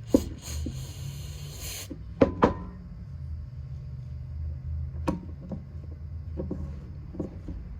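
An aerosol can of carburetor cleaner hisses in one spray burst of about a second and a half. Several sharp clicks and knocks follow as the small carburetor parts are handled.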